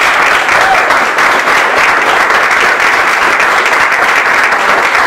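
Audience applause: loud, steady clapping from a roomful of listeners.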